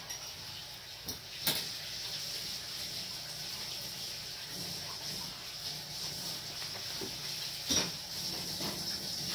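A few light clicks and taps from small carburetor parts being handled and fitted by hand, over steady workshop hiss and hum.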